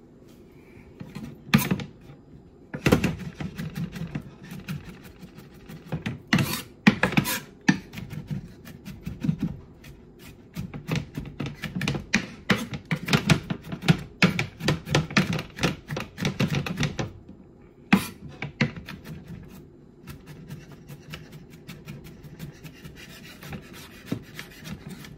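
Chef's knife chopping garlic cloves on a cutting board: runs of quick, sharp knocks of the blade on the board, several a second, broken by short pauses.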